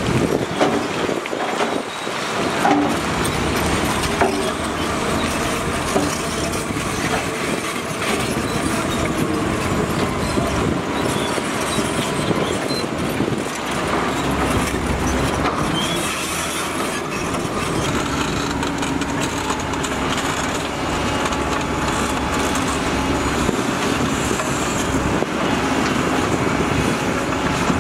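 Heavy construction machinery running steadily, a dense diesel drone with scattered metallic clanks.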